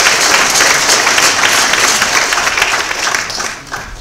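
Audience applauding: dense clapping that dies away in the last second.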